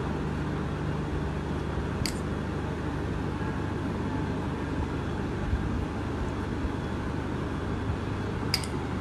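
Steady low hum and hiss of kitchen room noise, with two faint light clicks, about two seconds in and near the end, as a spoon serves salsa onto the plated burritos.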